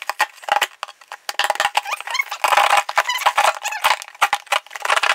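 A pen drawing on a cardboard box in short, scratchy strokes, with squeaks now and then.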